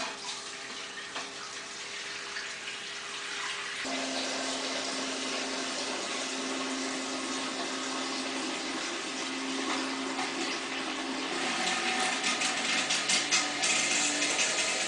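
Submersible bilge pump running, with a steady motor hum and water rushing through the hose and splashing into the glass tank as the level rises toward the switch sensors. The hum changes about four seconds in, and the splashing gets choppier near the end.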